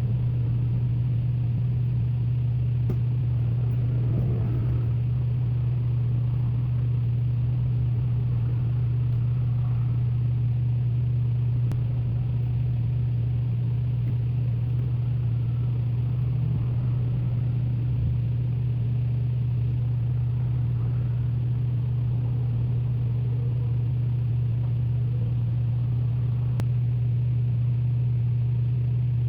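A steady, loud, low hum at one unchanging pitch, with only faint small handling noises over it.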